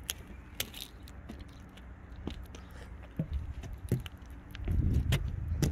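Footsteps and scattered light knocks, scrapes and crunches as someone moves over the weathered deck of a derelict boat, with a louder low rumble about five seconds in.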